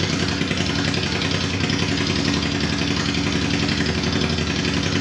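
Honda Transalp's V-twin engine idling steadily on its first run after a full rebuild, running on bare header pipes without a silencer fitted.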